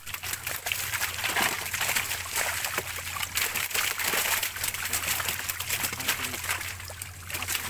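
Many fish crowded in shallow water inside a net, thrashing and splashing without a break, with water sloshing and dribbling off hands as fish are grabbed.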